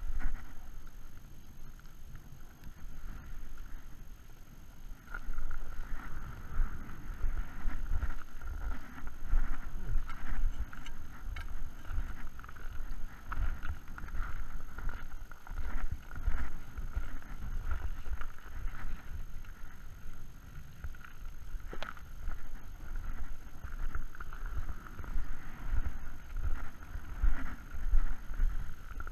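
Footsteps crunching over hard snow and ice in an uneven walking rhythm, with wind rumbling on the microphone.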